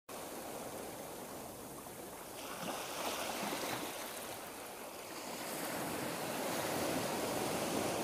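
Steady outdoor wash of wind and small waves at the sea shore, swelling a little about three seconds in and again near the end.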